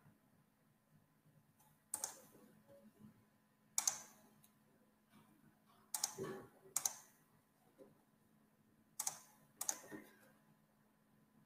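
Sharp clicks from someone working a computer's mouse and keys, about seven in all, a second or two apart, with some in quick pairs.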